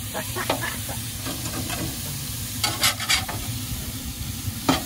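Meat sizzling on a Blackstone flat-top griddle, with a few short scrapes and taps of the large metal spatula on the cooktop, the loudest about three seconds in.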